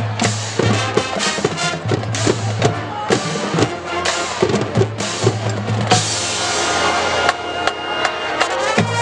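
Marching band playing its field show: drumline with bass drums and snares striking a fast rhythm over low brass. About six seconds in the drums thin out under a long held chord, and the low brass and drums come back in just before the end.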